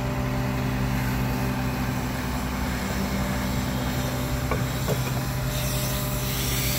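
Ponsse Ergo 6W forestry harvester's diesel engine running steadily at an even pitch, with two faint clicks about four and a half and five seconds in.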